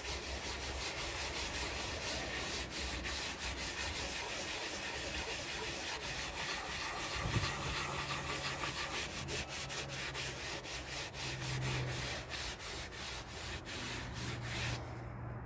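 Cloth rag rubbing hemp oil into the finished wooden surface of a drawer, a steady run of quick back-and-forth wiping strokes that stops just before the end.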